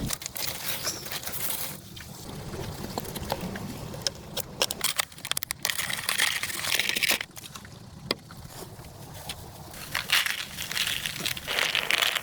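Water sloshing and splashing in surges of about a second, three times, with scattered sharp clicks and knocks between them.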